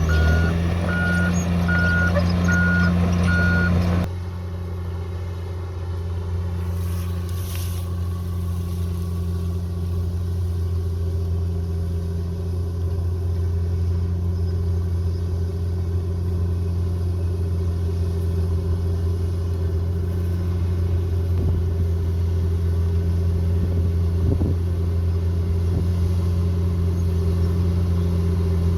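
Heavy earthmoving machine's diesel engine running with a steady low drone. For the first four seconds a reversing alarm beeps about once a second, then it cuts off abruptly and the engine runs on.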